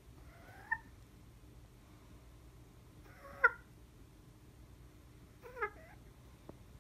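White bantam hen giving three short, plaintive rising calls a couple of seconds apart, the middle one loudest. They are the calls of a hen perched on a person's head that cannot get down.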